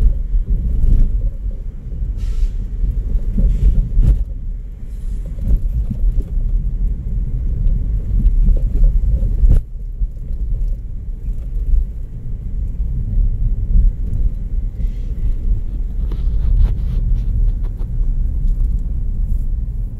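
Low, uneven rumble of road and wind noise from a car driving at speed, heard from inside the car, with a couple of short knocks, one about a fifth of the way in and one near the middle.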